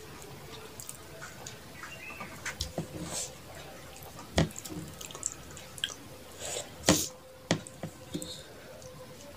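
Close-up wet mouth sounds of eating by hand: scattered lip smacks and moist clicks, with a couple of louder smacks about four and a half and seven seconds in.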